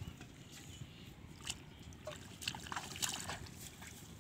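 Faint sloshing and splashing of shallow paddy-field water, with a few short splashes in the second half.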